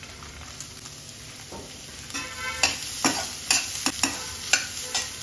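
Diced carrots and garlic sizzling in hot oil in a stainless steel wok. From about two seconds in, a perforated metal spatula stirs them, knocking and scraping against the pan about eight times with a short metallic ring.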